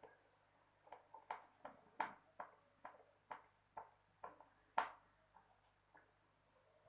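An irregular series of about a dozen sharp, light clicks and taps of hard objects, spaced roughly a third of a second apart. The loudest comes near five seconds in.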